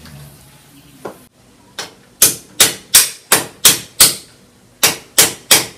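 A hammer striking repeatedly: two light taps, then a run of six sharp blows at about three a second, a short pause, and three more blows near the end.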